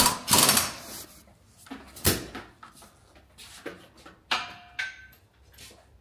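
Workshop clatter: a short burst of hiss right at the start, then scattered knocks and clinks of metal tools and parts, one about four seconds in with a brief metallic ring.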